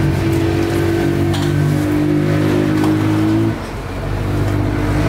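A motor vehicle engine running steadily, which drops away suddenly about three and a half seconds in and then picks up again near the end.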